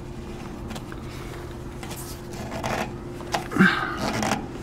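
PVC conduit being screwed by hand into the fitting on top of a load center: a few short plastic scrapes and knocks in the second half, the loudest about three and a half seconds in. A steady faint hum runs underneath.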